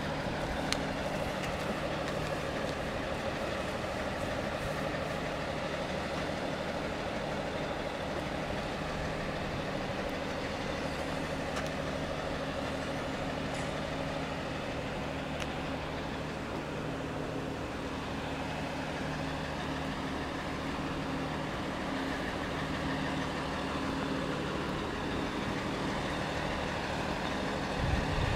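Fire truck engine idling steadily.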